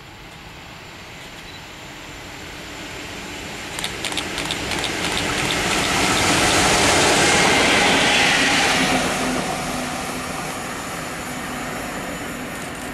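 A pair of coupled locomotives running light pass on the nearest track. The rumble and wheel-on-rail noise swells to a peak about seven or eight seconds in, then fades as they go by. A run of sharp clicks comes around four to five seconds in.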